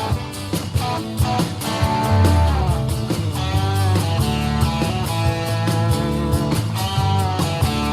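Rock music with guitar, played back through a portable Bluetooth speaker for a sound test.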